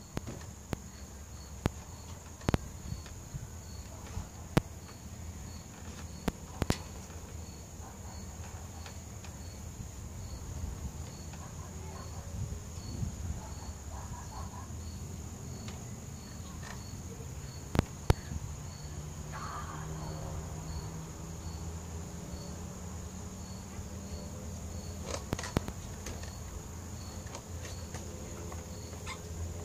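Evening insect chorus: a steady high-pitched drone and a cricket chirp repeating a little more than once a second. A few sharp knocks are scattered through it.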